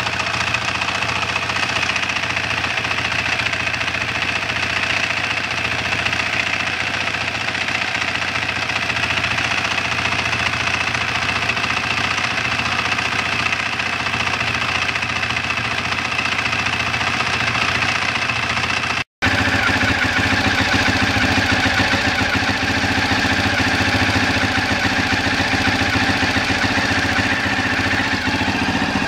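Husaberg single-cylinder four-stroke dirt bike engine idling steadily, heard close up, with no revving. The sound drops out for an instant about two-thirds of the way through, then goes on.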